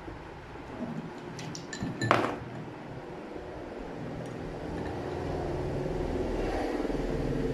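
Ice cubes dropped into a glass of juice, clinking a few times between about one and a half and two seconds in, the loudest just after two seconds. A steady low hum comes up from about five seconds in.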